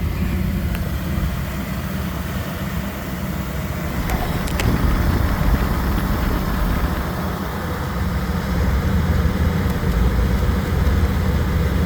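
1987 Chevy Suburban idling with its air conditioning running, a steady low rumble, with a couple of light clicks about four seconds in.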